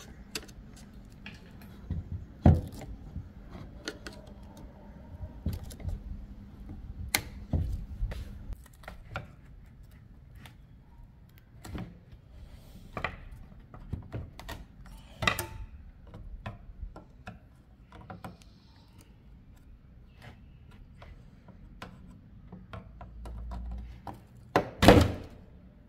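Flat-blade screwdriver prying the crimp tabs and plastic end tank off an old car radiator: irregular metal clicks, scrapes and knocks. A loud crack near the end as the tank comes loose.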